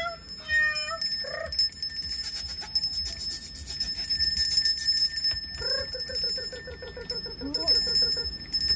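Bell-like jingling and clicking, with short high squeaks; about halfway through comes a quick run of a dozen or so squeaks.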